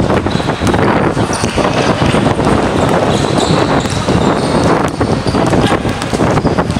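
Basketballs bouncing on a hard outdoor court in irregular knocks, over a constant background rush of noise.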